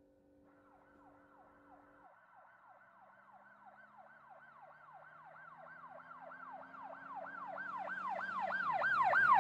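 Electronic emergency-vehicle siren in a fast yelp, rising and falling about three times a second and growing steadily louder toward the end. A soft held musical chord underneath stops about two seconds in.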